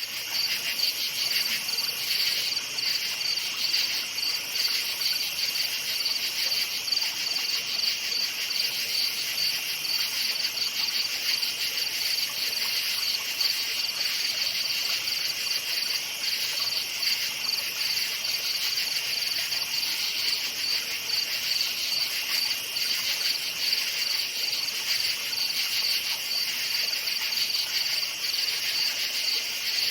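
Chorus of crickets chirping continuously: a steady, finely pulsing high trill over a second, lower-pitched band of chirping.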